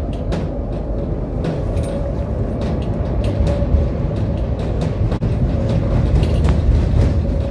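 Tram running along its rails: a steady low rumble with frequent clicks and rattles, and a faint steady whine held throughout.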